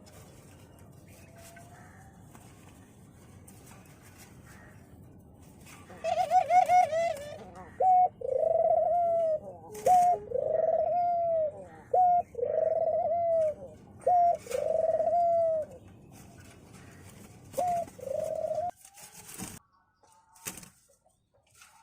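Australian dove cooing: a quick trilled burst about six seconds in, then a run of about five calls, each a short note followed by a longer arched coo, repeated every two seconds or so.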